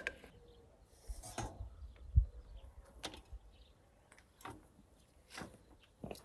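Scattered clinks and knocks of a metal springform pan and wire rack being handled on a granite counter, with a dull thump about two seconds in.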